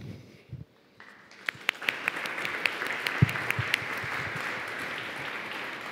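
Audience applauding after a talk: scattered claps begin about a second in and build into steady applause. One low thump about three seconds in stands out above the clapping.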